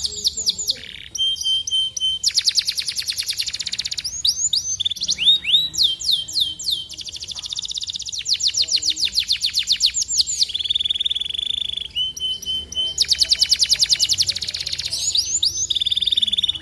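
Domestic canary singing a long, continuous song: strings of quick falling notes alternating with very fast trills, and a buzzing roll held for about a second and a half past the middle.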